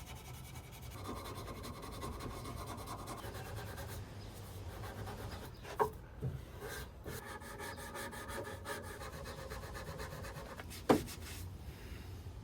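Hazel walking stick being smoothed by hand: a steady, faint rubbing of the tool along the wood, with two sharp knocks about six and eleven seconds in.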